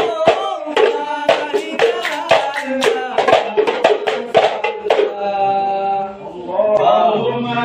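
Men singing together in hadrah Ishari style over sharp hand claps and frame-drum strokes, about three a second. About five seconds in the strokes stop while the voices hold a long note, then the chanting starts again.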